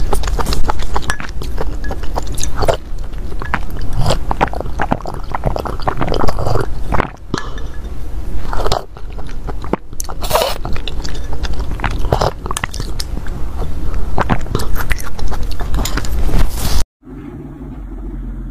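Close-miked eating sounds: a wooden spoon stirring and clinking in a glass bowl of liquid dessert, with slurps and swallows as it is sipped and drunk from the bowl. The sound cuts off sharply near the end, leaving a quieter low hum.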